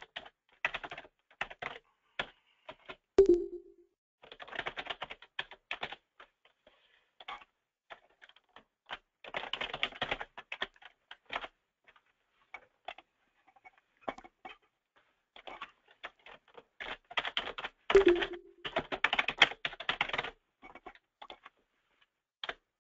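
Typing on a computer keyboard: bursts of rapid key clicks separated by short pauses, with two louder thuds, one a few seconds in and one later on.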